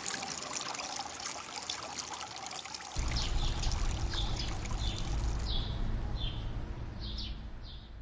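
Creek water trickling and splashing over stones and a fallen branch. About three seconds in a low rumble sets in, and through the second half a bird calls in a run of short, falling chirps.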